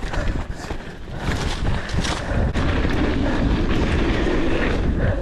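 Mountain bike rolling along a dirt trail: a steady rumble of tyres and wind rushing over the microphone, with a few light rattles and clicks from the bike.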